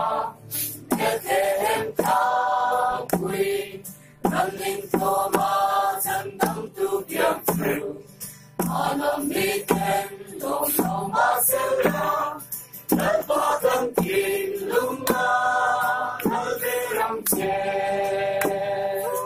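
A group of voices singing a Christmas carol together in phrases, with sharp beats running under the singing.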